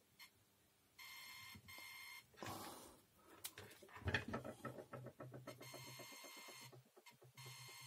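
Digital multimeter's continuity buzzer beeping as a probe touches the stripped end of a sewing-machine power cord wire, showing that the wire conducts. Two short steady beeps come about a second in, then a crackly, broken buzz from about the middle as the contact flickers, and a steady beep again near the end.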